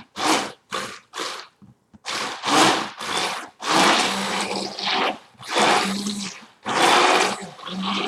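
Immersion blender mixing a wet conditioner base while guar gum thickener is blended in: a quick run of short pulses, then running continuously with a steady motor hum under wet churning.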